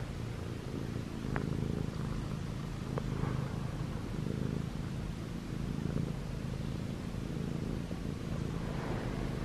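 Munchkin cat purring steadily, close to the microphone, with a couple of faint ticks in the first three seconds.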